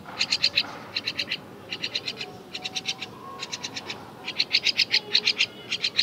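Baby myna chick calling: short bursts of rapid, high, harsh notes, about eight bursts in quick succession with brief gaps.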